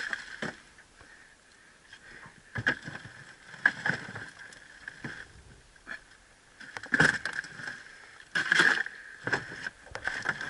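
Irregular knocks and thumps as a redfish is put into a plastic ice chest on a bag of ice in a metal boat. A faint, steady high tone runs underneath.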